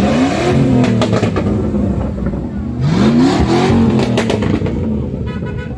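Off-road SUVs driving past one after another, their engines running over a steady rumble and revving up twice, about three seconds apart, as they pull past.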